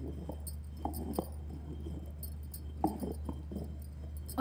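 Stone pestle being turned and worked in a round stone grinding basin, with soft irregular knocks and scrapes and light clinks of bangles, over a steady low hum.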